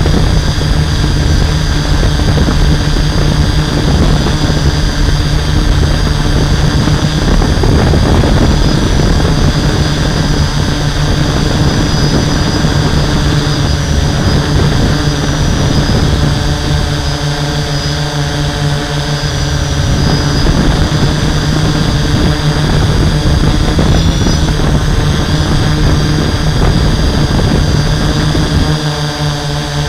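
Hexacopter's six electric motors spinning 11-inch propellers, a steady multi-tone drone heard from the camera on board the craft. Underneath is a low rumble of wind and prop wash on the microphone, which eases for a few seconds past the middle and again near the end.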